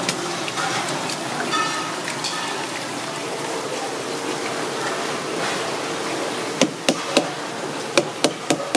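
Water sloshing and pouring in a plastic bowl as fresh sea urchin roe is rinsed. Near the end comes a quick run of sharp knocks, about seven in two seconds.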